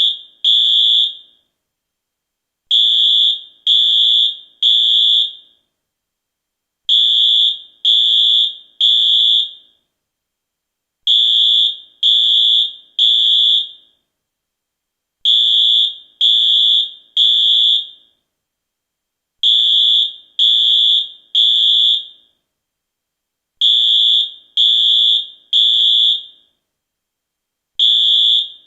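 US fire alarm sounding the temporal-three evacuation pattern: three high-pitched beeps, a pause, then three again. The groups repeat about every four seconds.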